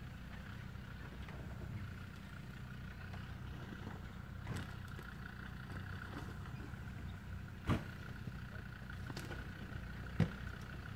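Land Rover Defender 90's engine running faintly at low revs in a steady drone as the 4x4 crawls down a steep rocky track. A few short sharp knocks break in, the loudest about two-thirds of the way through.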